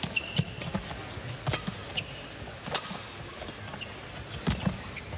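Badminton rally: the racket strings strike the shuttlecock with sharp cracks, roughly one every second or so. Shoes squeak briefly on the court floor in between.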